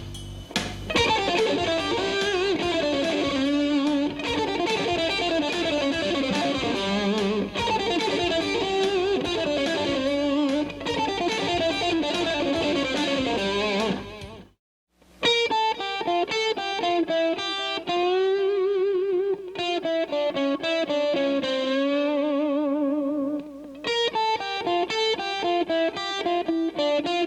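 Overdriven electric guitar playing short solo phrases built from a G Dorian and blues scale sequence, first over a drum track. About halfway through it drops out for about half a second, then returns with longer held notes bent with vibrato.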